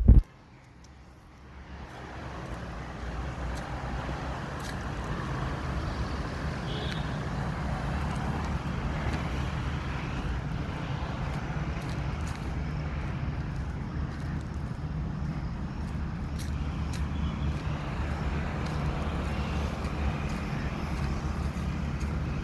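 Steady road traffic noise, a continuous low rumble that fades in over the first few seconds and then holds.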